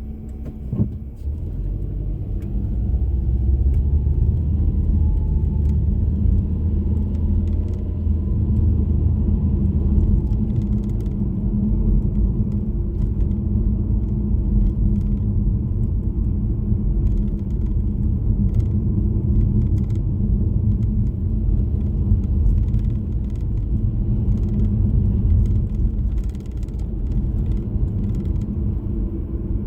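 Car driving on the road, heard from inside the cabin: a steady low rumble of engine and road noise that grows louder about three seconds in as the car picks up speed, with a single click about a second in.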